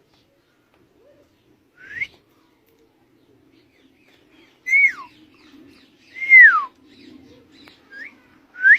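Pet bird whistling: five clear whistled notes, short rising ones and two longer ones that rise and then fall, the loudest about six seconds in.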